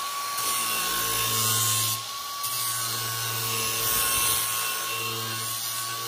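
Cordless DeWalt angle grinder running with a steady high whine, its Diablo flap disc grinding the edge of a steel lawn mower blade with a harsh hiss that swells and eases as the disc works along the edge.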